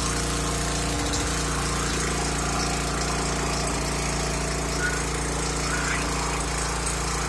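11-horsepower Honda engine on a gas pressure washer running steadily.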